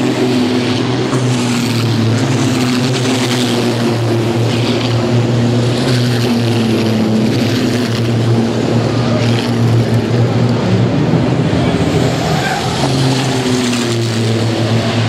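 Diesel engines of racing trucks running steadily and loudly as a line of them passes on the track.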